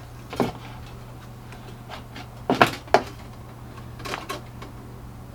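Short knocks and clatters of parts being handled while the hitch wiring harness is fished into place, loudest in a cluster between two and a half and three seconds in, over a steady low hum.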